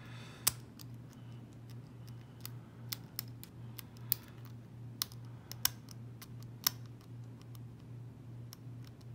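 Lock pick working the pins inside a Corbin padlock's keyway: scattered, irregular sharp clicks, over a steady low hum.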